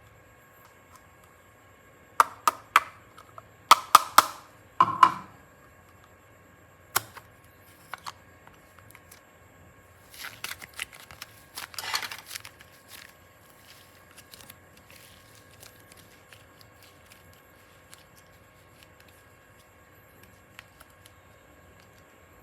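Handling noises from clay crafting: a quick run of sharp clicks and taps a couple of seconds in, a single tap a little later, then a short crackling rustle about halfway through.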